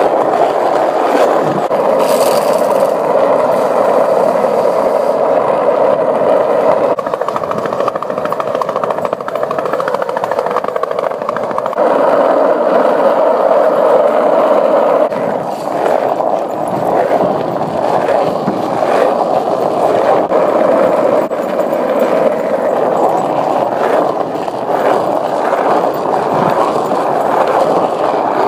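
Skateboard wheels rolling steadily over rough asphalt, with a few short clacks in the second half.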